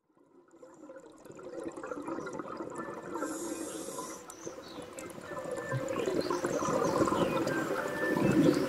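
Underwater bubbling and gurgling from scuba divers' exhaled air. It fades in from silence over the first couple of seconds and grows louder toward the end.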